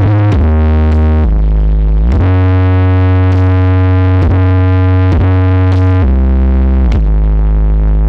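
Very loud electronic music played through a large 'sound horeg' rig of 21-inch subwoofer booster boxes. Long, deep synth bass notes change pitch every second or two, with pitch slides between some of them.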